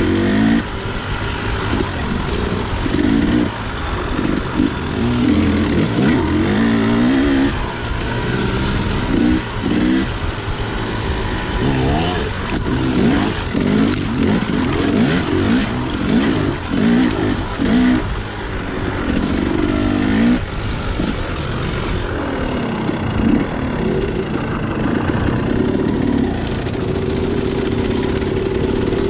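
Two-stroke KTM 300 XC dirt bike engine revving up and down over and over as it is ridden along a rough trail, with knocks and rattles mixed in. In the last several seconds the engine holds a steadier note.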